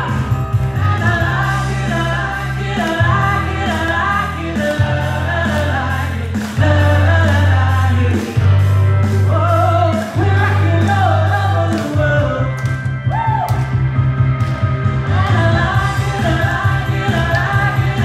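Female singer performing a pop cover live over a backing track with a steady beat and a prominent bass line, with guests singing along.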